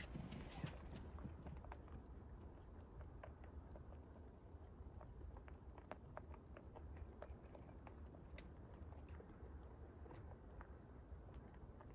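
Rabbits chewing, heard as faint, irregular crunching clicks over a low rumble.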